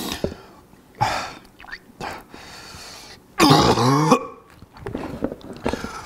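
A man coughing, hacking and clearing his throat over a bowl, with a loud drawn-out retching groan about three and a half seconds in. He is gagging and close to vomiting from the burn of a Carolina Reaper pepper.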